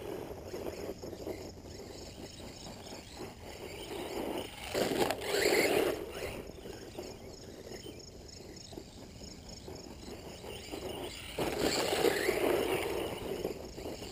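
Brushless motor of a 1/14-scale RC monster truck whining up in pitch in two bursts of throttle, about five seconds in and again near the end, with the rush of its tyres over wood chips.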